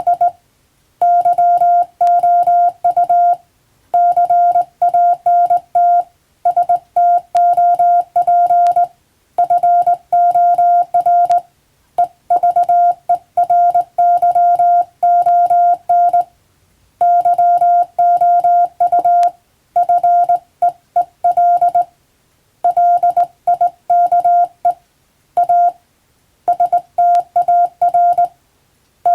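Morse code (CW) sent as a single steady beep tone, keyed on and off in quick dots and dashes, in runs of characters separated by short pauses.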